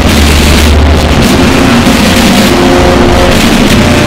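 Bagpipes playing, so heavily distorted and clipped that they come out as a harsh, very loud, noisy blare. Steady held notes sound over a low drone that drops back about a second in.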